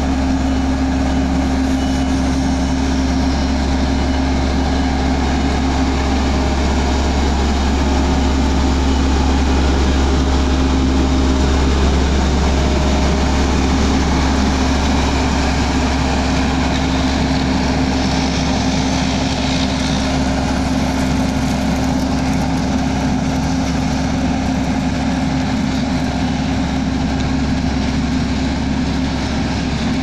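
Diesel engine of a Bomag tandem asphalt roller running steadily as it compacts fresh asphalt, a continuous low hum with a steady drone above it.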